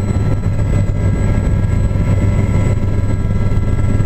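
Aérospatiale Gazelle helicopter in flight, heard from inside the cabin: its Turbomeca Astazou turbine and three-blade rotor make a steady low drone with several steady high tones above it.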